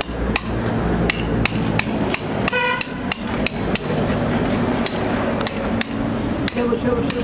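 A farrier's hammer tapping steadily, about two to three blows a second, as a shoe is nailed onto a horse's hoof. One blow about two and a half seconds in rings out with a metallic tone.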